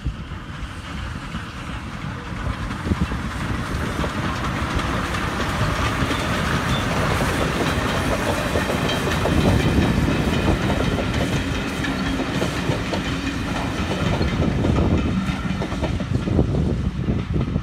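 Two steam locomotives, L&Y No 752 and No 2890 Douglas, double-heading a passenger train: the engines grow louder as they approach and pass, loudest about ten seconds in. The coaches' wheels then keep up a clickety-clack over the rail joints.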